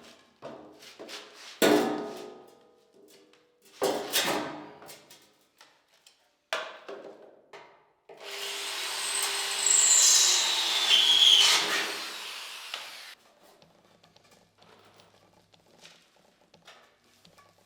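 Work with tools: several knocks and clatters, then about five seconds of a power tool running that cuts off suddenly.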